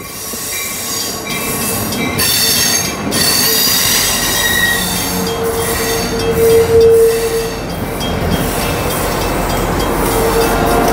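Shore Line East Mafersa passenger coaches rolling past close by, with continuous wheel noise and flange squeal; a steady squeal tone is loudest from about five to seven and a half seconds in. Near the end, the low rumble of the GP40-3H diesel locomotive pushing at the rear grows as it approaches.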